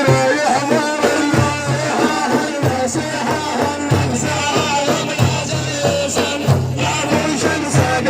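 Music from an Arabic devotional praise song (madih): instruments playing with a pulsing bass line.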